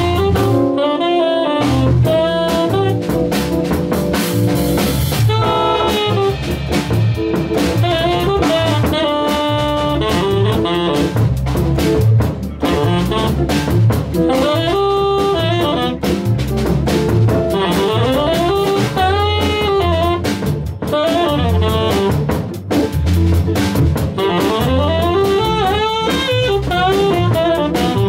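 Live jazz combo playing: a saxophone carries the melody over a drawbar organ, acoustic guitar and drum kit.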